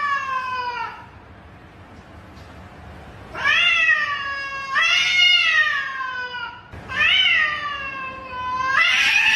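Domestic cat meowing loudly: long, drawn-out meows, each rising and then sliding down in pitch. One tails off about a second in, and four more follow in quick succession after a pause.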